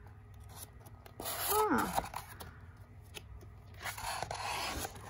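Paper pages of a paperback book rustling as they are handled and flipped, loudest near the end. A short falling vocal sound comes in about a second and a half in.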